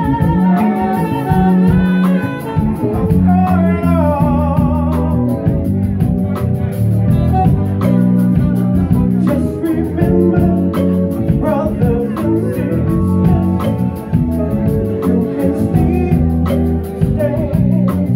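Live band music: a man singing into a microphone over electric bass and electric guitar, heard through a loud bar PA. A wavering, held vocal line stands out in the first few seconds before the band carries on.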